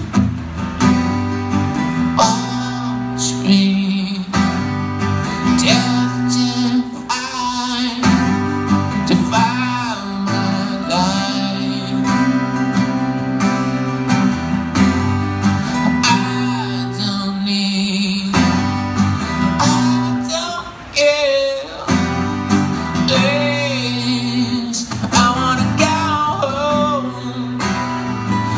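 Two acoustic guitars played together live, steady low chords with a wavering, bending melody line above them.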